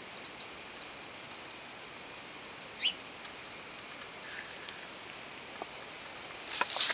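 Outdoor ambience with a steady high-pitched insect drone, a single rising bird chirp about three seconds in, and rustling knocks from a finger rubbing over the microphone near the end.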